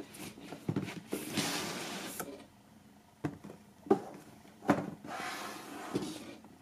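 Cardboard sliding and scraping as a boxed item is pulled out of its cardboard carton, with several light knocks of cardboard on the table.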